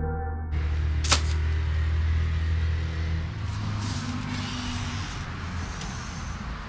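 Low rumble of a passing motor vehicle that fades about three seconds in, over outdoor street ambience, with one sharp click about a second in.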